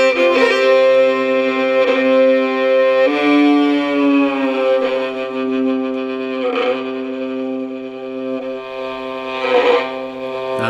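Fiddle playing a slow air without singing: long held notes over a steady lower note, changing pitch a few times.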